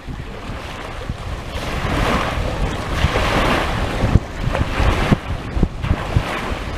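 Wind buffeting the microphone in uneven low thumps, over the wash of small waves, which swells to a rushing hiss about two to four seconds in.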